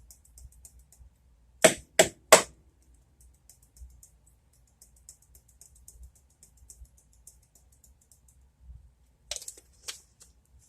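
Three sharp clicks in quick succession about two seconds in and two more near the end, with faint, rapid light ticking in between: a garlic powder container being handled and opened.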